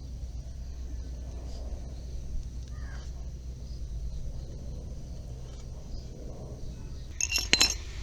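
A tubeless-tyre puncture-repair reamer is being worked into the nail hole in a scooter tyre to widen it. The handling sounds are quiet over a steady low hum, with a brief burst of sharp clicks and rattles about seven seconds in.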